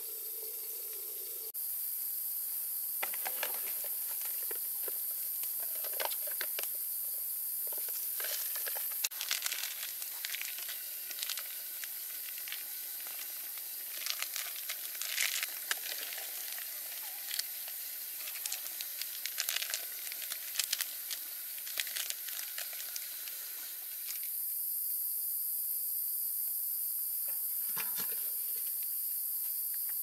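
Plastic food packaging crinkling and tearing in quick irregular rustles through the middle, as instant noodle wrappers and seasoning sachets are opened, over a steady high-pitched insect drone.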